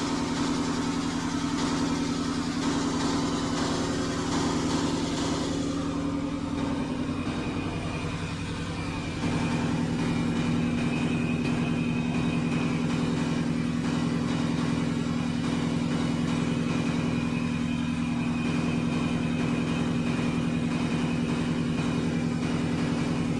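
Apex 1025M industrial deburring sander running steadily with a low motor hum. A grinding hiss at the start fades out about six seconds in, and the hum grows slightly louder about nine seconds in.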